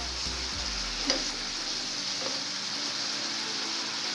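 Shrimp and petai sambal sizzling in a nonstick frying pan while a spoon stirs it, with a sharp tap of the spoon on the pan about a second in.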